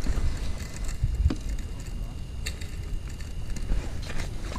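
Low rumble of wind buffeting the microphone, with a few scattered light clicks from handling the rod and reel as a fish is brought up. A faint thin high tone runs through the middle.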